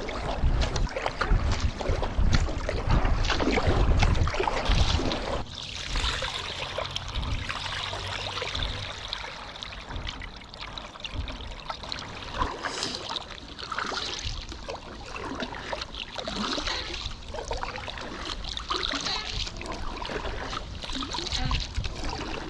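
Water splashing and trickling with the strokes of a paddle on a stand-up paddle board. Wind buffets the microphone for about the first five seconds, then the water sounds carry on more quietly.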